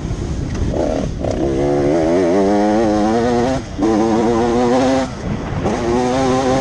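Motocross bike engine revving hard as it is ridden on a dirt track, its pitch climbing under throttle and dropping out briefly twice before climbing again near the end.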